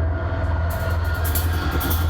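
Live metal band playing loud through a PA: a heavy, pulsing low bass drone, with bright cymbal strikes coming in under a second in.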